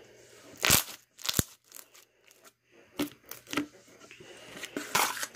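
Stretchy slime being pulled and pressed by hand, giving a series of sharp pops and crackles, the loudest just under a second in.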